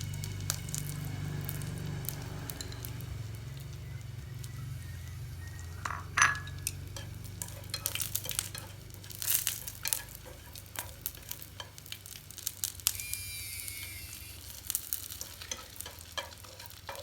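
Cicadas deep-frying in hot oil in a pan, sizzling and crackling steadily, with the clicks and scrapes of a utensil stirring them. A sharp clink of the utensil against the pan comes about six seconds in.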